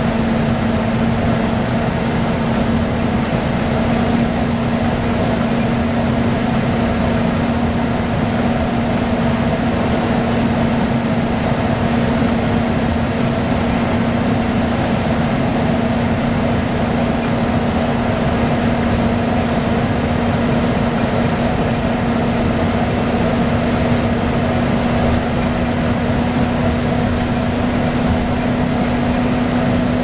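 Inside a 1998 Orion V transit bus under way: the steady drone of its Detroit Diesel Series 50 engine and Allison transmission with road noise and the ventilation fans running. A steady hum runs through it and rises slightly in pitch near the end.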